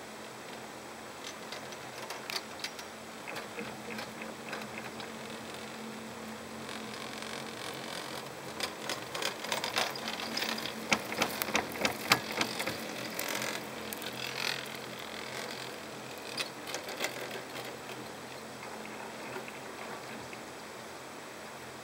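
Chairlift haul rope and chair grip running over a lift tower's sheave wheels: a clatter of many clicks that builds over several seconds, is loudest about halfway through, then dies away, over a steady hiss.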